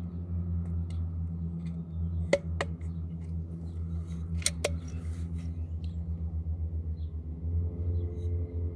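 Two sharp shots from a homemade rifle about two seconds apart, each followed a fraction of a second later by a second, weaker crack. A steady low hum runs underneath.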